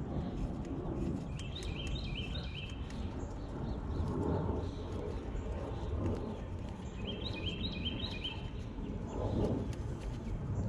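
A songbird sings two short runs of quick repeated chirps a few seconds apart, over a steady low background rumble with a few faint clicks.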